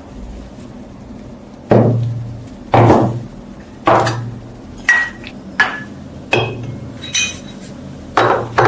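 A hammer striking metal, about nine blows at roughly one a second, each with a short metallic ring.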